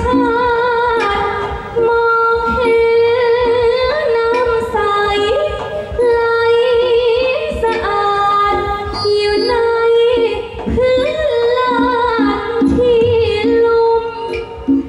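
A woman singing a likay song (Thai folk opera) through an amplified microphone, in long held notes with a wavering, ornamented melody. Drums beat underneath.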